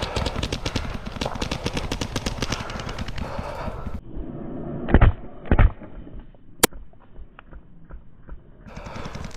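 Electronic paintball marker, a Planet Eclipse Gtek 180R, firing in a rapid stream of about ten shots a second. After about four seconds the sound turns muffled, with two heavy thumps about five seconds in and a single sharp click shortly after.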